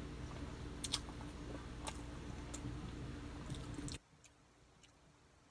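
Close-up chewing of food with the mouth closed, with a few sharp mouth clicks, over a steady low hum with a droning tone that cuts off abruptly about four seconds in; only faint chewing ticks remain after that.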